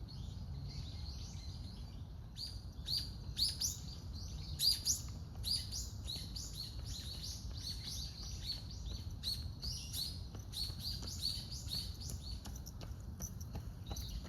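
Birds calling: a steady run of short, high, downward chirps, several a second, loudest a few seconds in, over a low background rumble.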